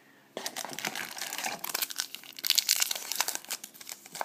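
Foil wrapper of a trading-card pack being torn open and crinkled by hand, a dense crackling that starts about half a second in.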